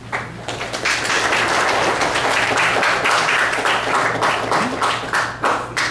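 Audience applauding, a dense patter of many hands clapping that starts right away and dies away near the end.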